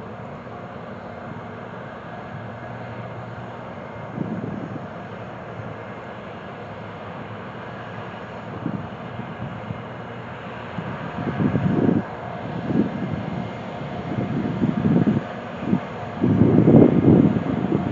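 Wind buffeting the microphone in irregular gusts over a steady background rumble; the gusts come more often and louder in the second half.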